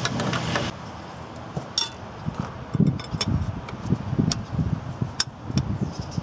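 A wrench clinking and knocking against the exposed rocker arms and valve train of a Caterpillar 3126 diesel engine, in irregular metal clicks and dull knocks. A steady rush of noise cuts off about a second in.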